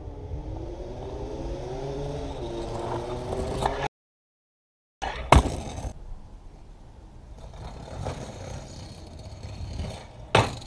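Stunt scooter wheels rolling on asphalt, the hum rising in pitch and loudness as the scooter approaches. After a short break, the scooter hits brick paving with a sharp clack and rolls on, and near the end a second loud clack comes as it lands from a jump off a ledge.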